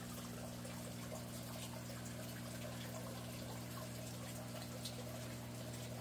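Water running and trickling steadily in an aquaponics system, with a steady low hum underneath.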